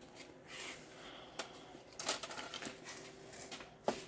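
Scattered light clicks and taps of transmission parts and tools being handled on a workbench during a 4L60E teardown: a few quick taps in the middle and a sharper click near the end.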